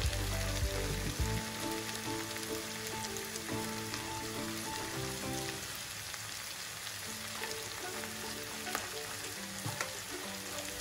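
Diced potatoes, onion, green chillies and curry leaves sizzling in hot sesame oil in a frying pan, with a wooden spatula stirring and scraping through them. A soft background melody plays under the sizzle for about the first half.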